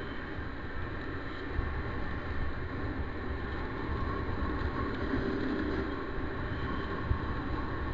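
A 50cc motorbike's small engine running as it rides along a road, with wind rumbling on the microphone.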